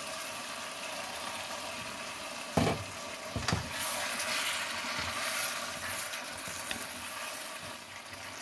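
Butternut squash and tuna curry sizzling and bubbling steadily in a pan as a wooden spatula stirs it, with two sharp knocks of the spatula against the pan about two and a half and three and a half seconds in.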